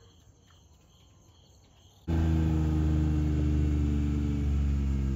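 Very quiet for about two seconds, then a loud, steady low drone from a running motor cuts in abruptly and holds at one unchanging pitch.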